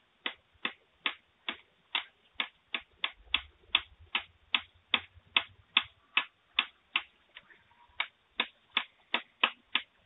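A blade chopping at a piece of wood: sharp, regular knocks about two and a half a second, with a brief pause near the middle. The sound comes through a doorbell camera's thin, narrow-band microphone.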